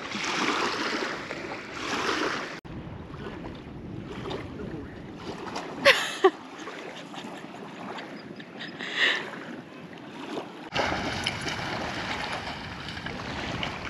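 Wind buffeting the microphone over small lake waves lapping at a sandy shore, in several short cuts. Two brief loud sounds come close together about six seconds in.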